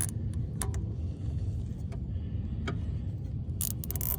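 Plastic zip ties being pulled tight around an electrical connector: a few separate clicks, then a quick run of ratcheting rasps near the end as a tie's strap is drawn through its lock, over a steady low rumble.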